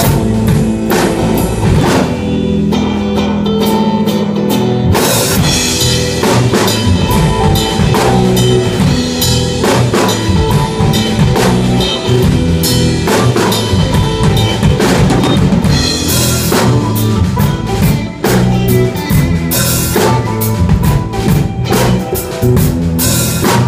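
Instrumental outro of a blues song played by a band, the drum kit prominent with bass drum and snare strokes over a steady bass line.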